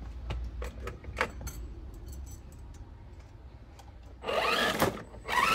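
Small electric motor of a radio-controlled Land Rover Defender scale truck whirring in two short bursts near the end, each rising in pitch, after a few light clicks and taps.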